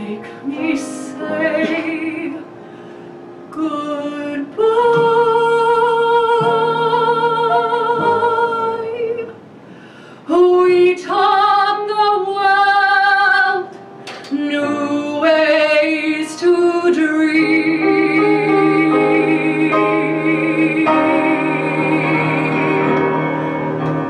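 Female vocalist singing the closing phrases of a musical-theatre ballad with upright bass and piano accompaniment. Her phrases have wide vibrato, and the song ends on one long held note that starts about two-thirds of the way through.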